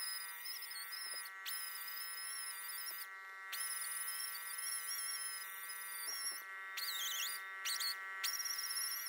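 Power tool whining at a high pitch as the weld spots on stainless steel spoon heads are cleaned up. The pitch wavers with load and the whine drops out briefly several times, dipping once near the end, over a steady multi-tone hum.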